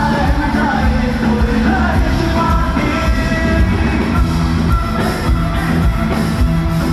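Live band music with a singer, loud and steady with a heavy bass.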